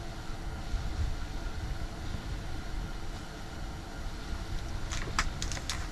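Steady low rumbling background noise with a few faint steady tones in it, and a cluster of sharp light clicks near the end.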